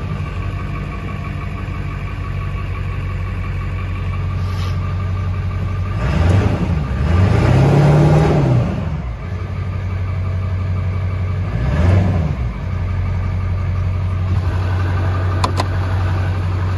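Ford F-250's 7.3 L Power Stroke V8 turbo-diesel idling just after starting, revved three times: a short blip about six seconds in, a longer rev that rises and falls around eight seconds, and another short blip near twelve seconds, each settling back to idle. A few light clicks near the end.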